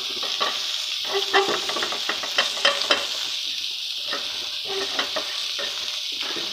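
Flour roasting in oil in a nonstick frying pan, the first stage of a white-sauce roux, with a steady sizzle. A spatula stirs and scrapes it across the pan in clusters of strokes from about one to three seconds in and again near five seconds.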